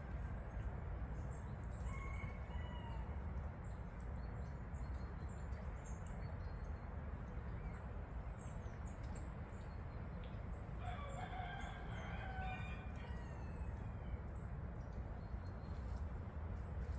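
A bird gives a long crowing call of about two seconds a little past halfway through, with a shorter call near the start. Faint high chirps are heard over a steady low background rumble.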